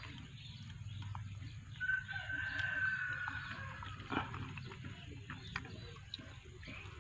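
A rooster crowing once, a long held call starting about two seconds in, with a few sharp clicks of someone eating juicy fruit afterwards.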